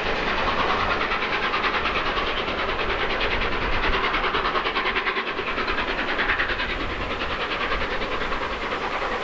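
Steam-hauled Pullman train of LNER A1 60163 Tornado running by, with a fast, even rhythmic beat of about seven a second.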